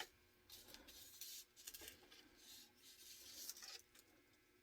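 Near silence with faint rubbing and light scraping of small plastic parts and a fine chain being handled.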